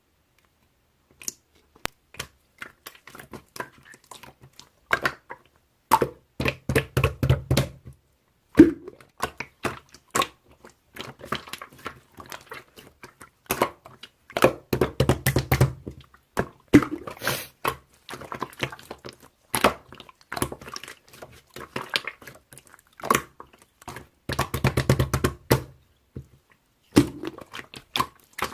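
Hands playing with slime: squishing and pressing it, with many small crackling pops and clicks, and three heavier runs of rapid popping.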